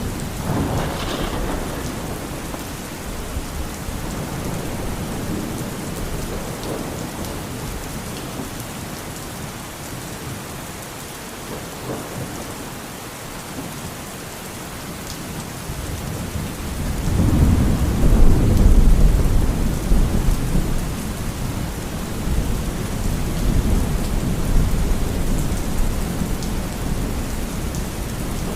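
Steady rain falling, with rolling thunder: a low rumble near the start, then a louder rumble that builds a little past halfway, peaks and slowly fades.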